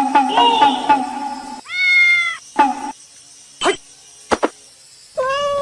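Cat meowing twice, a long meow about two seconds in and another near the end, after a stretch of rhythmic music; two quick sliding sounds come in between.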